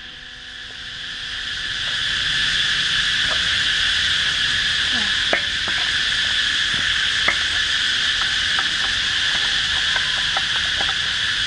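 A steady, high-pitched chorus of insects that swells over the first two seconds and then holds. Scattered light clicks and knocks come from a steel auger bit being fitted onto an Oshima earth auger's drive shaft.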